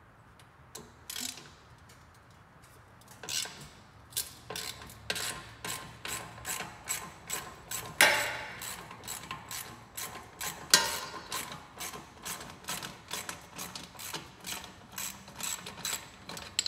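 Hand ratchet wrench clicking as it works the muffler mounting bolts loose. The first few seconds are mostly quiet, then come runs of quick clicks, with two louder knocks about halfway through.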